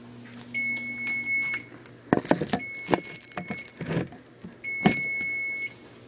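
Electric range's oven timer beeping: three long, steady high beeps about two seconds apart, the middle one fainter, with clattering knocks between them.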